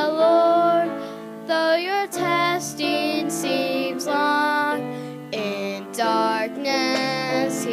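A slow hymn sung by a voice over instrumental accompaniment, with long held notes that waver in pitch.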